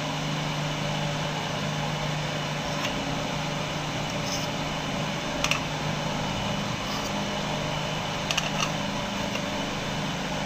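Steady mechanical hum, like a room fan or air conditioner, with a few light metallic clinks of aluminium kulfi moulds and their caps being handled: a double clink around the middle and a quick cluster a few seconds later.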